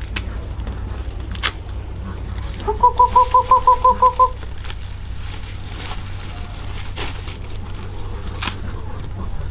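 A bird calling: a quick, even series of about ten short notes on one pitch, about three seconds in and lasting about a second and a half, over faint clicks and a steady low rumble.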